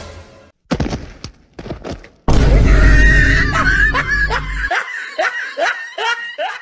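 Cartoon sound effects: a few short crashing noises, then a loud sudden hit with deep bass and a run of rapid laughing, two or three laughs a second, that cuts off near the end.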